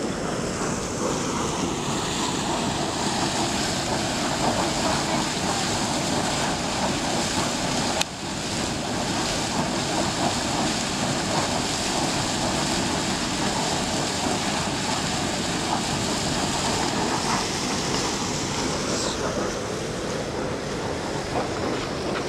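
Steam venting from a volcanic geyser pit at Taal Volcano: a loud, steady rushing hiss that breaks for an instant about eight seconds in.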